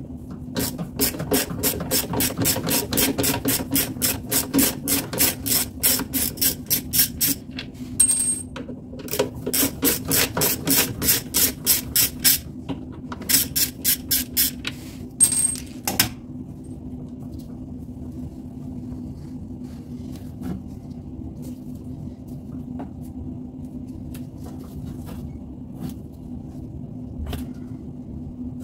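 Bosch Maxx 6 washing machine running with a steady hum, with a fast regular scraping clatter, about four a second with short breaks, that stops about sixteen seconds in and leaves only the hum. The noise is taken for a broken drum, since the motor bearings have been replaced and the drum bearings are good.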